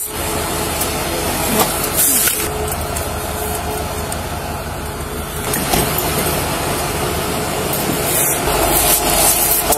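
Vehicle engines idling with a steady rumble and hiss, changing abruptly a few times.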